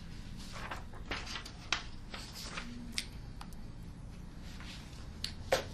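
Paper rustling and being shuffled, with a scatter of short sharp clicks, over a steady low room hum.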